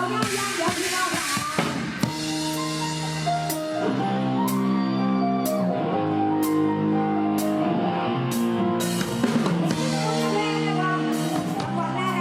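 Live band music from an Isan luk thung / mor lam sound-truck band: a drum kit keeps a steady beat under held chords.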